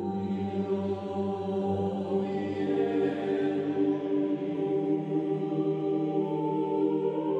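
Slow ambient background music of long held chords with a choir-like sound, without a beat.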